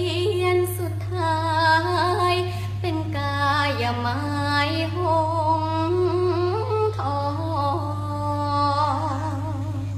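A girl singing a Thai luk thung song unaccompanied, holding long notes with vibrato and ending on a long wavering note near the end. A steady low hum runs underneath.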